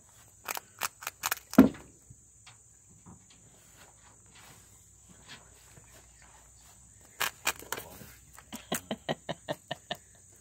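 Dry hay crackling and rustling in short bursts of sharp clicks as a Netherland Dwarf rabbit tosses it around, with one heavier thump about a second and a half in. The clicks come in two groups, the second a quick run of about five a second near the end.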